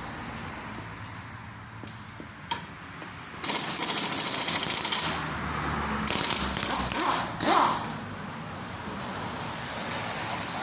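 Impact wrench rattling in two bursts, each lasting a second or two, after a few separate clicks of tools on metal. The second burst ends with a short whine as the tool spins up and down.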